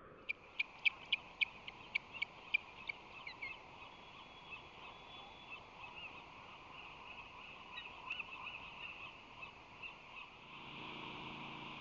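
Ospreys calling: a quick run of about ten sharp, whistled chirps in the first three seconds, then softer, scattered chirps. A steady hiss grows a little louder near the end.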